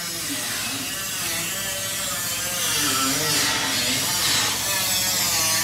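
A steady low electric buzz.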